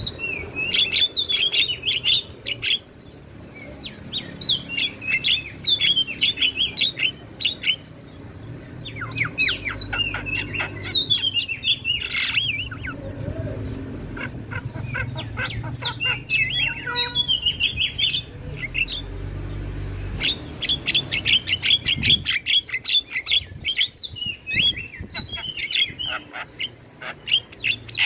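Javan myna (jalak kebo) singing: phrases of rapid, chattering high notes a few seconds long, separated by short pauses.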